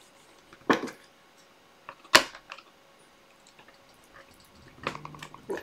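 Sharp clicks and snaps as the retaining clips on the back of a picture frame are pushed down with a scissor tip. Two loud snaps come about a second and a half apart, with smaller clicks between them and a quick run of small clicks near the end.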